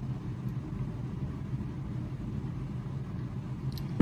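Steady low mechanical hum, with a sharp click at the very end.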